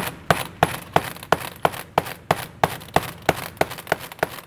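A hammer tapping a seal driver in steady, sharp blows, about three a second, to drive a new oil seal into a BMW front-axle output shaft support flange.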